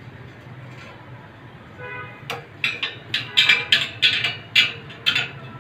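Steel spokes of a motorcycle wheel being worked with a spoke wrench: a quick run of sharp metallic clinks and pings, each ringing briefly, about three or four a second, starting a little over two seconds in over a faint low hum.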